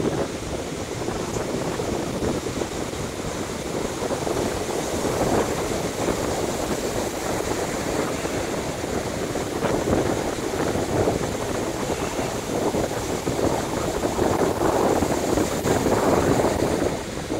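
Ocean surf breaking and washing up a sandy beach, with wind buffeting the microphone; the rush swells and eases as waves come in.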